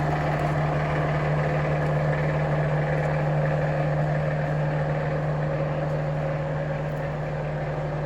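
A heavy engine running steadily at a constant speed, a deep even drone with a strong low hum.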